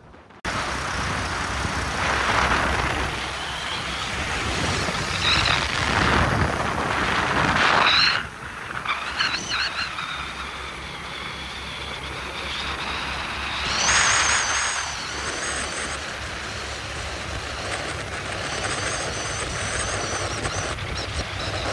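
KTM Duke 200 single-cylinder motorcycle riding at road speed: the engine's low steady running under heavy wind rush. The sound cuts in abruptly at the start, surges louder a few times, and high wavering whistling tones come and go.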